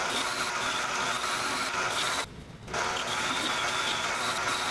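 Mini metal lathe running with a steady whine while a carbide tool takes a light cut across the face of a mild steel part. The sound drops away for a moment a little past halfway, then picks up again.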